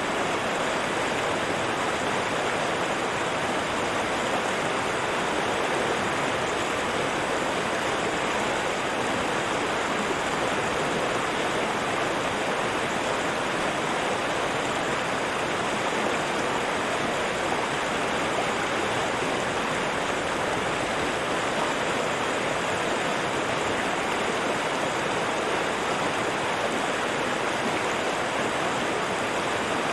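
River water flowing steadily, an even, unbroken rush of moving water.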